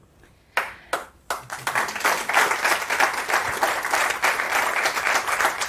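Live audience applauding: a few scattered claps in the first second or so, then many hands joining in steady applause.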